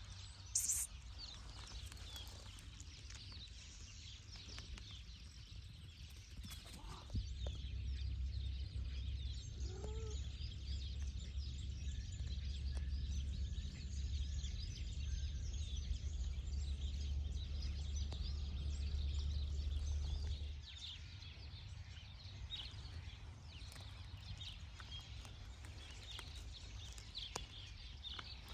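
Outdoor ambience of many small birds chirping. A low steady rumble sets in about seven seconds in and stops about twenty seconds in.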